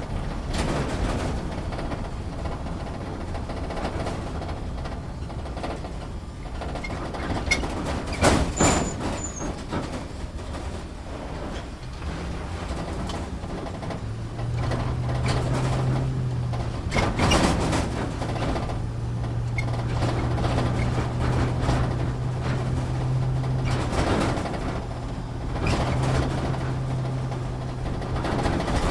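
Inside an off-road vehicle's cabin, driving over rough ground: a continuous rumble with frequent knocks and rattles, and two sharp jolts, one about a third of the way in and one past the middle. A steady engine hum comes up about halfway through and holds.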